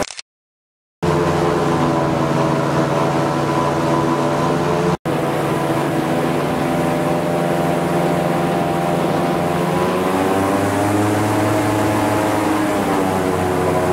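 Airboat's engine and air propeller running at cruising speed, a loud steady drone whose pitch shifts a little near the end. The sound cuts out for under a second near the start and very briefly about five seconds in.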